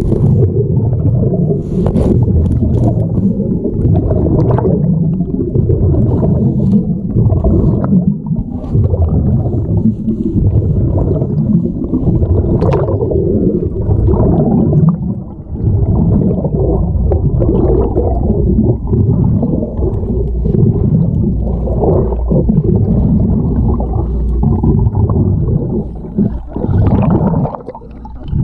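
Muffled rumbling and gurgling of moving water heard from a submerged camera, with scattered light clicks and knocks. The level dips briefly about halfway through and again near the end.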